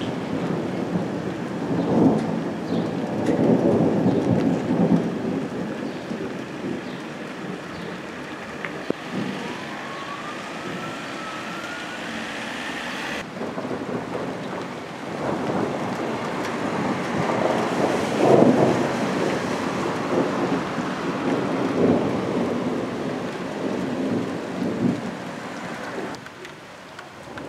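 Thunder rumbling in long rolls over a steady background hiss. The rolls are loudest about two to five seconds in and again from about fifteen to twenty-five seconds in. A faint rising whine comes in the middle.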